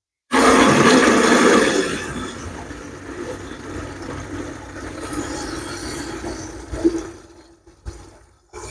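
Water from a garden hose gushing into a plastic watering can under high pressure, a loud rushing splash that eases after about two seconds and then runs on more softly, with a single knock near the end.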